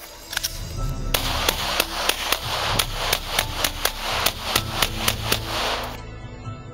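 Rapid string of 9mm pistol shots from a Glock 17, about four shots a second and some seventeen in all, starting about a second in and stopping shortly before the end.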